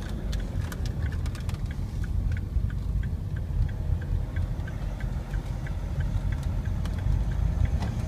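Car driving, heard from inside the cabin: a steady low rumble of engine and road noise, with a light regular ticking about three times a second.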